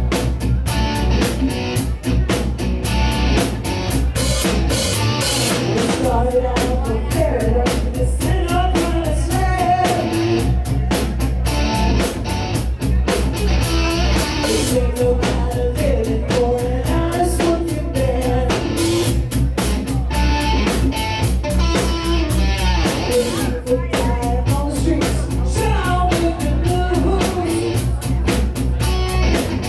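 Live rock band playing: electric guitar, bass guitar, drum kit and keytar, with singing over the top.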